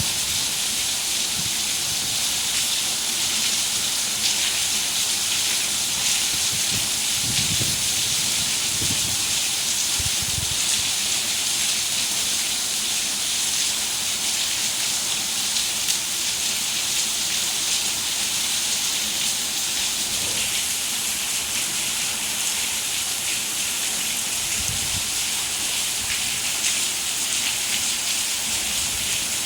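Steady heavy rain, a dense even hiss, with a few faint low rumbles now and then.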